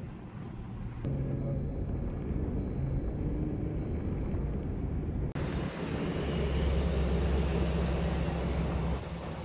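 Jeeps driving on a sand beach: steady engine and tyre noise from moving vehicles, cutting abruptly twice between recordings. The last part has a stronger low engine drone under a broad wind hiss.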